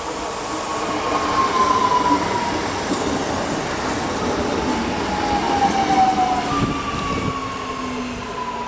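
Electric passenger train pulling into a station and slowing, with the steady rumble of wheels on rails and high whining tones that slide slowly down in pitch several times.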